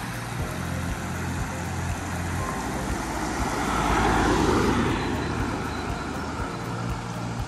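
A Škoda Superb estate car passing close by on a road, its tyre and engine noise swelling to a peak about four seconds in and then fading. Underneath, the steady rush of a small stream spilling over a low weir.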